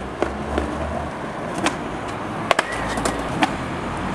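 Skateboard wheels rolling over paving stones with a low rumble, clicking sharply several times, the last click near the end being the tail snapping down as the skater pops an ollie off the top of a ten-stair set.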